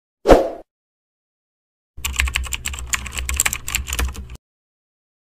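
Inserted sound effects. A short, loud thump comes first. After about a second and a half of dead silence, a rapid clatter of clicks like keyboard typing runs for about two and a half seconds over a low hum, then cuts off.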